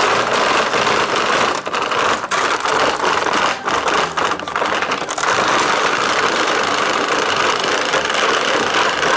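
Hand-cranked plastic grinder of a McDonald's toy kitchen set crushing cornflakes into crumbs: a loud, continuous crunching rattle with a few momentary breaks in the cranking.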